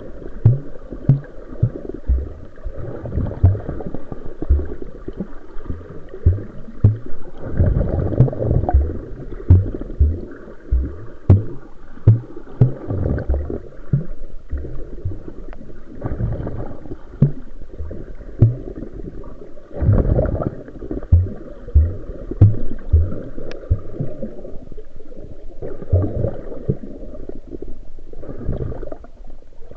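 Sea water sloshing and gurgling, with many short, irregular low thumps.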